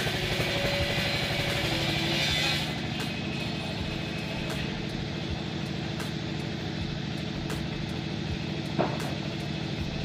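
An engine running steadily at a low, even hum. A hiss over it cuts off suddenly about three seconds in, and there is a single sharp click near the end.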